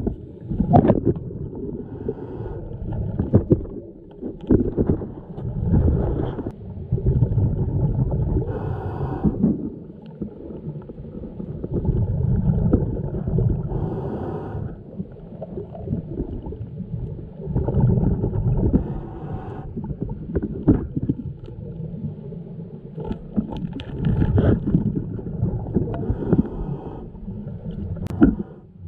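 Scuba regulator breathing heard underwater: exhaled bubbles come in surges every few seconds, with a few sharp knocks between them.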